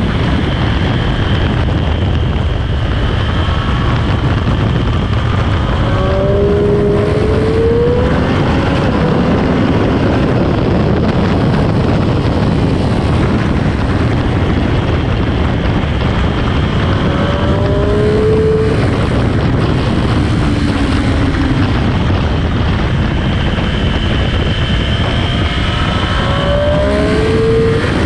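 Sport motorcycle at speed on track, its engine note buried under heavy wind rush on the microphone. The engine pitch rises briefly three times as the bike accelerates out of corners.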